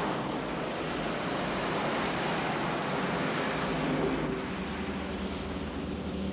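Road traffic: cars driving past on a dual carriageway, a steady wash of tyre and engine noise that eases off in the second half.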